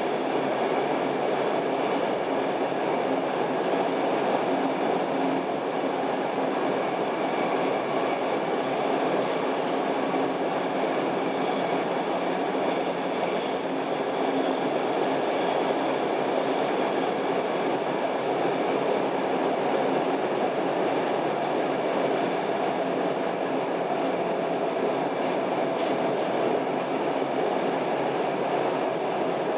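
Stockholm Metro C6 subway car running at speed, heard from inside the car: steady rumble of wheels on the rails with a faint steady whine over it.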